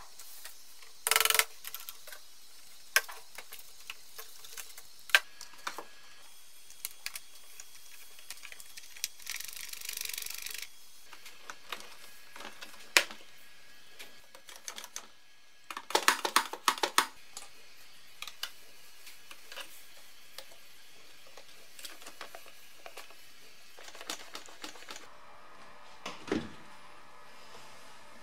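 Scattered clicks, taps and rattles of hard plastic parts and metal cable ends being handled and clipped together on a car heater unit, with a short burst of rattling clicks about a second in and a longer cluster around the middle.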